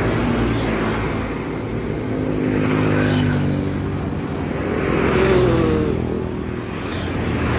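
Motor vehicles passing on the road, their engine sound swelling twice as they go by, with a falling pitch on the second pass.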